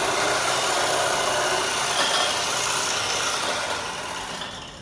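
Electric hand mixer running steadily, its beaters whipping whipped-cream powder and milk into cream in a bowl; it fades and is switched off near the end.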